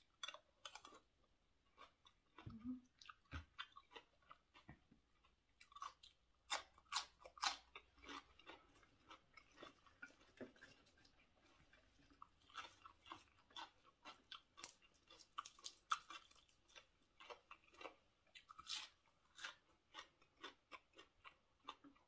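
A person chewing a mouthful of spicy raw seafood salad with fresh herbs, heard close and quiet: irregular wet smacks and soft crunches.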